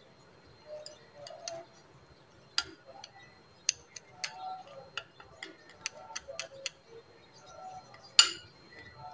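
A spoon stirring a thick gram flour paste in a glass bowl, clicking and scraping against the glass in irregular ticks, with one louder clink near the end.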